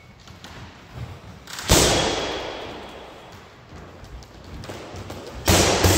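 Boxing-gloved punches slamming into a heavy punching bag, thrown as leaping gazelle punches: one hard blow a little under two seconds in, then another pair near the end, each echoing through a large gym.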